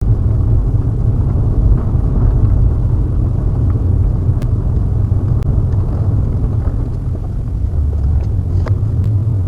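Car road and engine noise heard from inside a moving car: a steady low rumble, with a few faint clicks.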